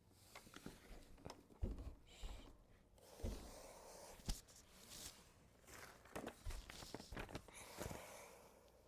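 Faint, irregular knocks and thuds with rustling between them: walking pad parts and packaging being handled during assembly.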